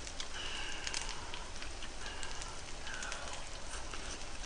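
Pork slices sizzling on a hot grill plate: a steady hiss with small, irregular crackles and spits of fat.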